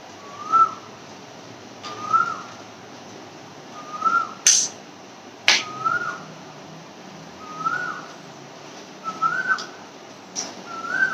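A bird's single short whistled note, rising then falling, repeated about every one and a half to two seconds. Two sharp clicks about halfway through come from the plastic visor and Pinlock insert being handled.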